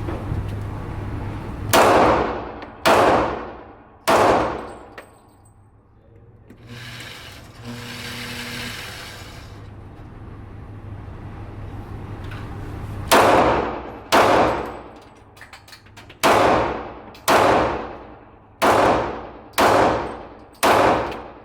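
Pistol shots, each with a long echoing tail: three about a second apart, then a pause of several seconds, then seven more at a similar pace.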